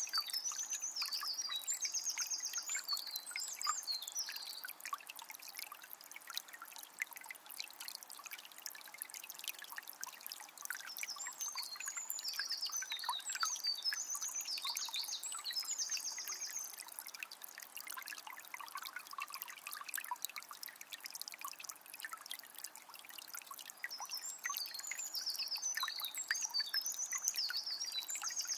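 Forest river flowing and trickling steadily. A bird sings a quick, high, repeated phrase three times: at the start, in the middle and near the end.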